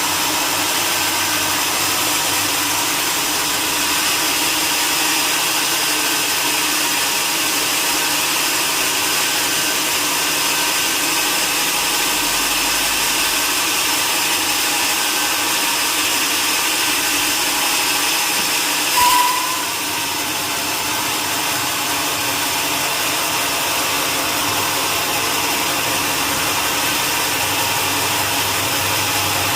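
Sawmill machinery running steadily, a continuous mechanical noise with a brief louder squeal about nineteen seconds in.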